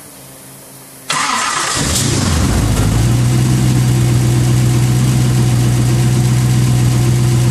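Fuel-injected engine of a Lamborghini Countach replica starting. A click and a short quieter hum come first, then about a second in it cranks and catches, settling within a couple of seconds into a steady idle. This is its first start after an air bubble was cleared from the fuel injector rail.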